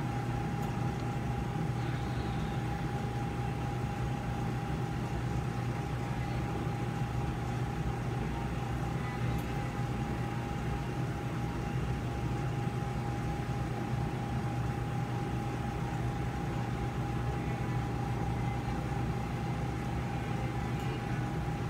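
Steady drone of operating-room equipment: a low hum with a constant mid-pitched tone held above it, unchanging throughout.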